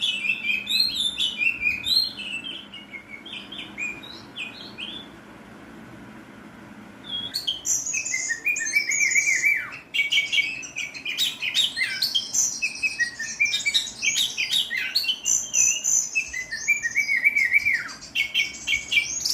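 Oriental magpie-robin (kacer) singing a rapid, varied song of whistled and harsh, rough burst phrases. The song drops to a lull after about two seconds and comes back loud about seven seconds in.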